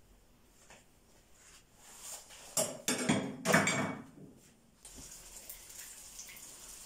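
Dishes and utensils clattering together a few times in quick succession, then from about five seconds in a steady faint sizzle of a dab of batter frying in hot oil in a pan.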